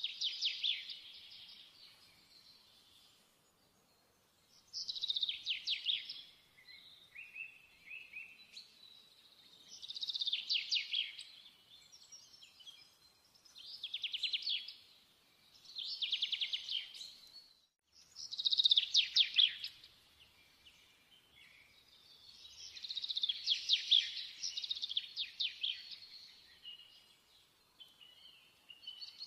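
A songbird singing in short phrases of fast, high-pitched trills, repeated every few seconds.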